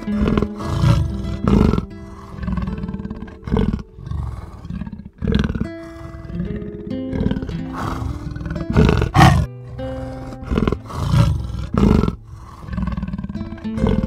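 A big cat, lion or tiger, roaring in a series of short, loud roars spaced about half a second to two seconds apart, over steady background music.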